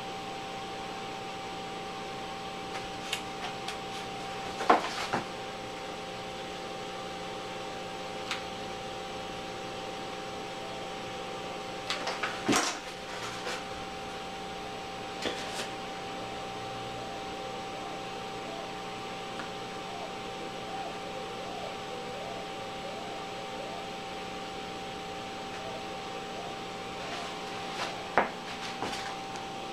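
A steady hum fills the room while foam-board and plastic prop pieces are handled, giving scattered light clicks and taps; the sharpest knocks come about five seconds in, around twelve seconds in, and again near the end.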